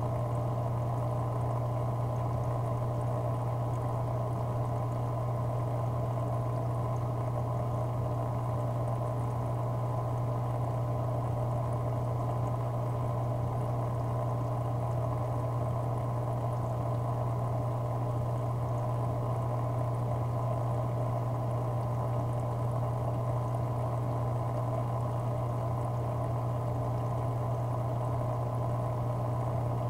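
Aquarium pump running with a steady low hum, over a constant wash of moving, bubbling water.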